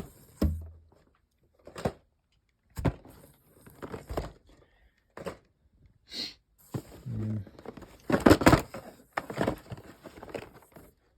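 Cardboard model kit boxes being handled and set down: irregular knocks, thuds and rustling, loudest about eight seconds in.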